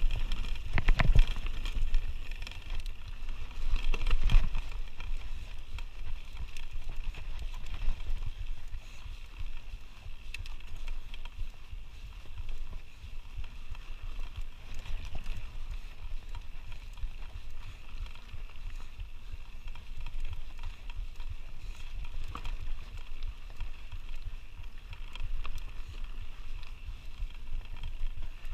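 Canyon Spectral full-suspension mountain bike riding down a rocky dirt singletrack: tyres crunching over dirt and stones and the bike rattling, with a steady low wind rumble on the action camera's microphone. Sharp rattling knocks over rocks come about one and four seconds in.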